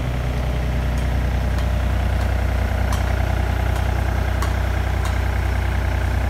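Komatsu PC30UU-5 mini excavator's diesel engine idling steadily, with a few faint clicks.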